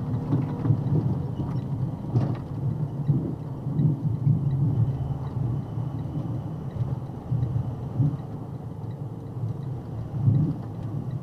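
Low, uneven rumble of a vehicle driving on the road, swelling and easing in loudness.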